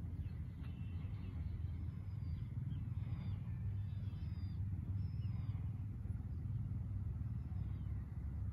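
Steady low rumble of a slowly moving vehicle, with short high bird chirps and whistles scattered throughout.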